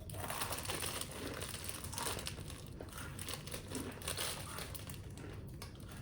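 Crinkling of a plastic fortune cookie wrapper being handled, strongest in the first couple of seconds and thinning out toward the end.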